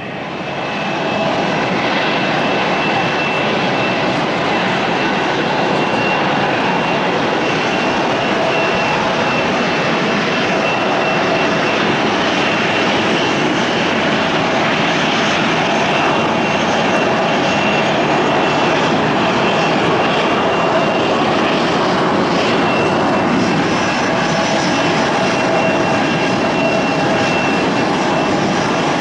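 A twin-turboprop De Havilland Canada Dash 8 airliner landing: its engines and propellers run loud and steady with a whining tone over a dense rush of noise. The sound swells about a second in and then holds.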